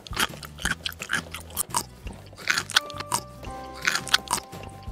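Crunchy munching sound effects: a quick run of bites and chews, over light background music.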